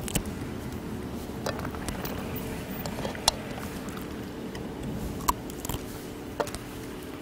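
Jindo dogs eating boiled pork: a few short, sharp chewing and crunching clicks scattered over a steady low hum.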